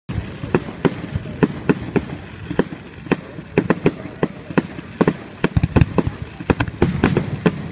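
Aerial fireworks going off in a rapid, irregular series of sharp bangs and cracks, several a second.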